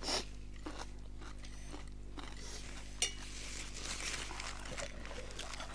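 Eating sounds from a bowl of spicy ramen noodles: a spoon and other utensils clink against the dish a few times, with softer mouth noises of eating in between.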